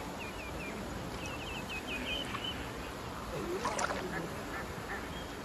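Canada goose honking, one louder call about three and a half seconds in, over a steady outdoor background hiss, with a few short high chirps in the first half.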